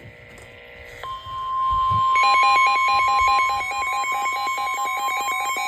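Emergency alert tones from a NOAA Weather Radio warning. A steady 1050 Hz attention tone starts about a second in, and from about two seconds in a louder electronic alarm beep pulses rapidly over it, about eight times a second.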